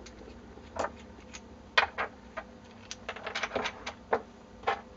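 Scattered light clicks and taps from small metal and acrylic parts of a Solidoodle 3D printer's extruder hot end being handled, as the brass heater barrel is worked free of its insulator by hand. There is a quick run of clicks about three seconds in.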